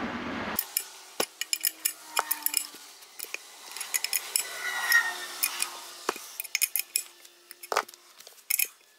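Wrench turning the nut of a crankshaft installer tool, pulling the crankshaft into the engine case: irregular metallic clicks and clinks with faint ringing.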